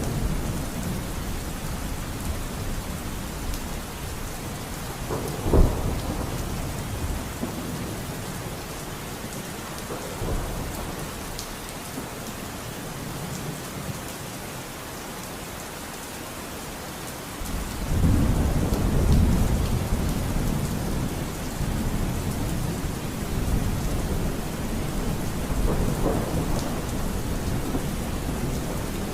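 Thunderstorm: steady heavy rain with rolling thunder. There is a sharp clap about five seconds in and a long, deep rumble starting just past halfway, with a further roll near the end.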